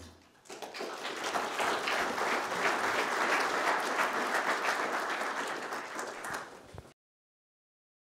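Audience applauding at the end of a talk. The clapping comes in about half a second in, holds at a steady level, and cuts off suddenly about a second before the end.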